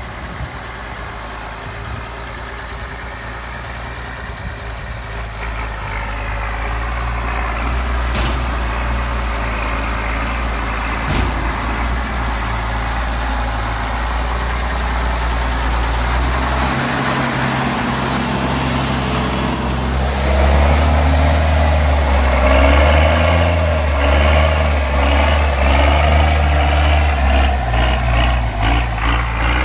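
County 1164 Turbo tractor's turbocharged engine working while buck raking maize, its load and pitch changing. It gets gradually louder and is loudest in the last third.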